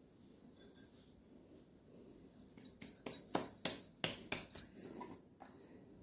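Stacked bangles jingling and clinking on the wrists as both hands rub and squeeze a crumbly flour and ghee mix in a steel bowl. A quick run of jingles from about two seconds in to about five seconds.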